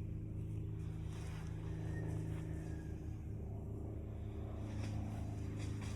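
Steady low hum of an idling engine, even and unchanging.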